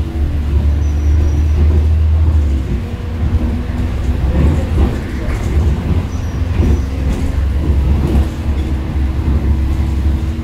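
Cabin noise inside a moving bus: the engine's low steady hum, with road noise. From about three seconds in the hum breaks up with a run of knocks for a few seconds, then settles again.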